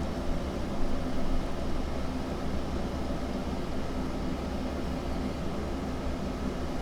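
Steady low background hum with a light hiss, unchanging throughout, with no distinct clicks or knocks.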